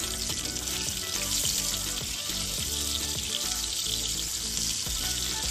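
Small whole bata fish shallow-frying in mustard oil in a nonstick kadai, giving a steady sizzle.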